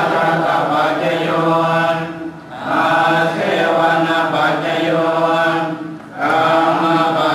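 Slow Buddhist chanting on long, steady held tones, in phrases a few seconds long with short breath pauses between them.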